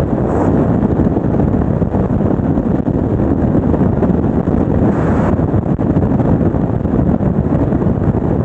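Steady, loud wind rush on the microphone, with a brief sharper hiss about five seconds in.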